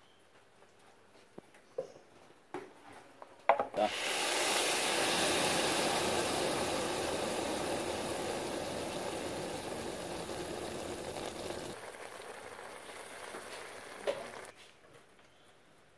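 Sugar syrup poured over a tray of hot, freshly baked baklava, sizzling and bubbling on the pastry. It starts sharply about four seconds in, is loudest at first, fades slowly, drops off about twelve seconds in and dies out near the end.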